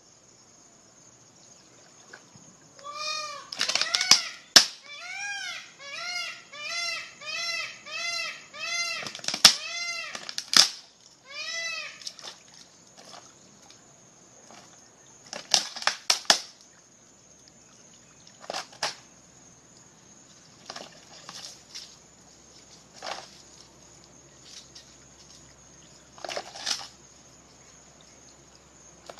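An animal calling over and over: about a dozen short cries in quick succession, each rising and falling in pitch, followed by a few scattered sharp clicks.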